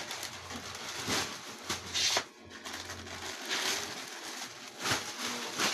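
Clear plastic wrapping around bundled clothes rustling and crinkling as it is lifted and handled, with several louder crackles.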